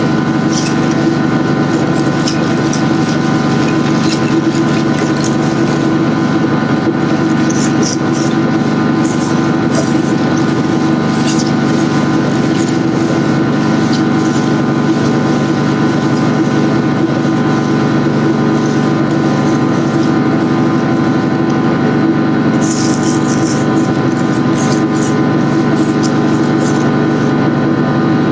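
A machine motor running steadily at a constant pitch, with scattered short clicks and scrapes over it.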